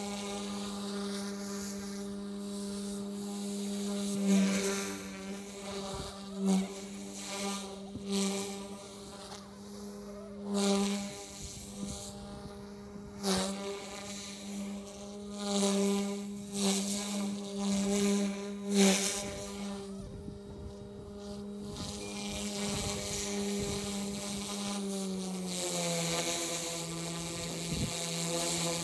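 Electric OMP M2 V2 RC helicopter flying, its motor and rotors giving a steady high buzzing whine, with repeated brief louder surges. About 25 seconds in, the pitch steps down a little.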